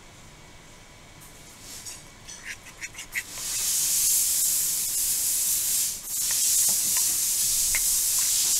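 Metal spoon stirring gritty dental stone and water in a ceramic bowl: a few light clicks and scrapes, then from about three seconds in a continuous scratchy scraping as the stone is mixed into a paste for a model base.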